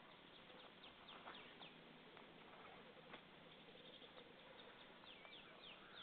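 Faint, distant songbirds: runs of short, high, quickly falling notes about a second in and again near the end, over a steady hiss.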